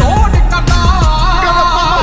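Background music: a song with a wavering, held vocal melody over deep bass drum hits.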